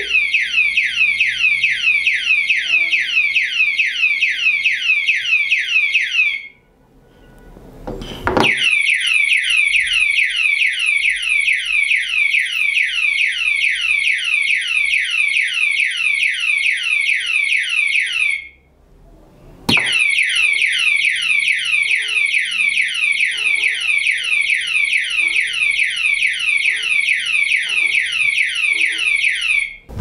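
Anti-theft alarm padlock's siren sounding after the armed lock is touched: a rapid run of falling electronic whoops, about three a second, with a thin high tone above. It cuts off twice, about a quarter and two-thirds of the way in, and each time starts again a second or two later with a knock.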